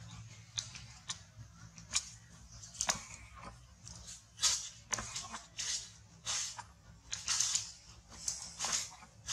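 Dry leaf litter crunching and rustling in short irregular bursts as a macaque walks and forages over it.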